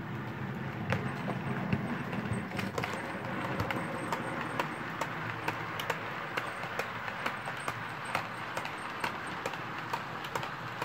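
OO gauge model trains running along the track: a diesel multiple unit and a rake of flat wagons. There is a low running hum with a regular clicking of wheels over rail joints, about two or three clicks a second.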